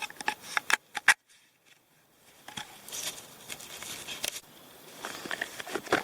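Knife spine scraping down a ferro rod fire starter in short sharp strokes to throw sparks, broken by a sudden dropout about a second in, then more rustling and scraping strokes.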